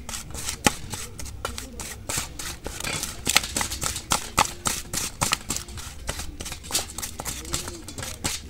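A spoon scraping and clicking against a stainless steel bowl as dry, crumbly fishing bait is stirred and crushed, in quick, irregular strokes.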